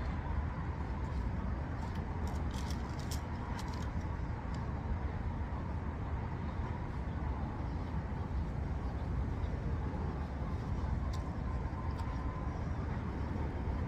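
Steady low rumble of a motor vehicle with a faint steady hum above it. A few light clicks come in the first few seconds and again about eleven seconds in.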